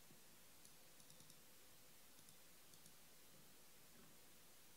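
Near silence: faint room tone with a few small clusters of light clicks in the first three seconds.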